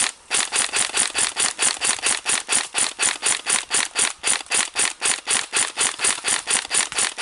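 Airsoft gun firing a long continuous string of shots at about eight a second, with one brief break just after the start.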